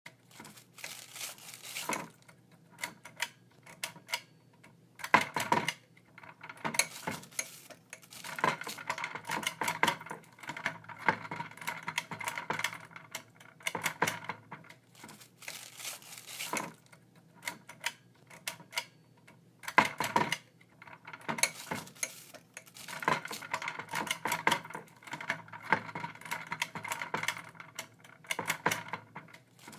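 Irregular clicking and clattering of small hard objects, in dense runs separated by quieter gaps, with some clinks that ring briefly.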